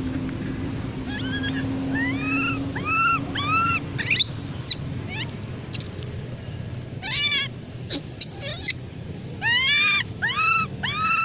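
Baby macaque crying: short, high-pitched cries that rise and fall in pitch, coming in runs of three or four with pauses between. It is a distress call for its mother's attention.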